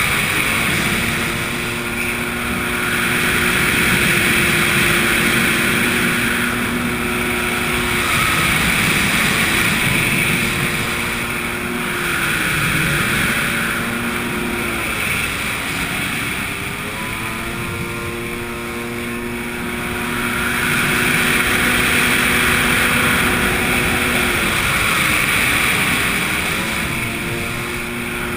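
Yamaha jet ski engine running at high speed, with the rush of spray and wind over it. The engine note drops briefly and comes back up several times, about eight, twelve, sixteen and twenty-seven seconds in.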